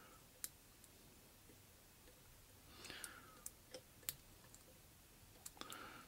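A handful of faint, scattered clicks of a hook pick working the pin stack of a Harbor Freight padlock's spring-loaded core under tension, against near silence.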